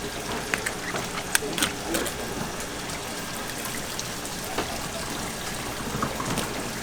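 Water running and splashing steadily, with a few scattered light clicks and knocks.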